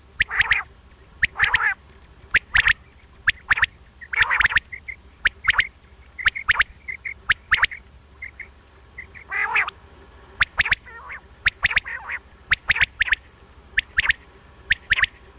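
Common quail calling over and over: harsh rasping calls every second or so, mixed with sharp clicking notes and soft short notes. It is a recorded quail call of the kind played to lure quail for hunting.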